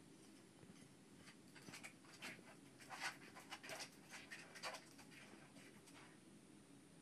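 Bearded dragon's claws scratching and scrabbling against the glass of its tank as it glass-surfs: a faint, irregular run of short scrapes starting about a second in, strongest near the middle and stopping about a second before the end.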